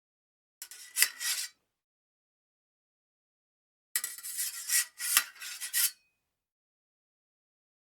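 Fencing sabre blades sliding against each other, a metallic scrape with a faint ring, twice: a short slide about half a second in and a longer one about four seconds in, with a few sharper clashes along it.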